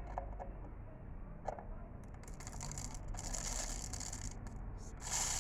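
Dry rice grains pouring into a cut-open container, a grainy hissing patter that comes and goes from about two seconds in, after a couple of light knocks.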